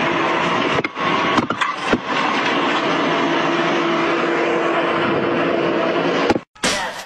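A heavy vehicle's engine running loudly and steadily with a constant hum, a few sharp knocks in it. It cuts off abruptly near the end.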